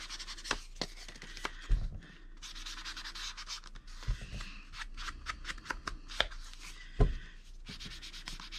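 Foam ink dabber dabbing and rubbing ink onto the edges of paper, a run of quick light taps with stretches of scratchy rubbing, and a few louder low knocks.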